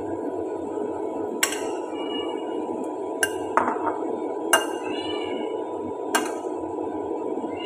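Dishes and utensils clinking against each other and against a metal dish rack during washing up: about five sharp knocks and clinks, some ringing briefly, over a steady low hiss.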